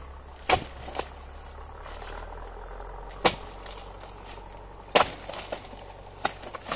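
Sharp chopping strikes of a dodos chisel blade being jabbed into the tough base of an oil palm frond. The strikes come irregularly, the strongest about halfway and three-quarters through, with a quick run of lighter ones near the end. A steady high insect drone runs underneath.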